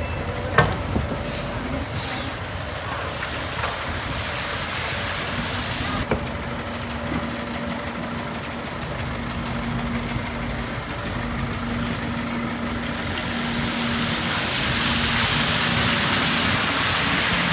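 Busy city street traffic with a heavy vehicle's engine humming steadily from about six seconds in. A rushing noise grows louder near the end.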